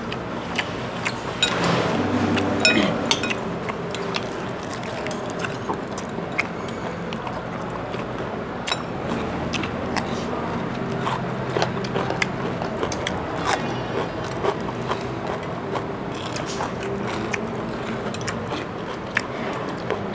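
People eating fried chicken and rice: chewing, with scattered clinks and scrapes of spoons against ceramic bowls, over a steady background hum.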